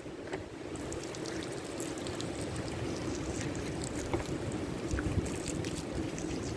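Wood fire crackling with scattered small pops and ticks, over a steady wash of moving water and wind.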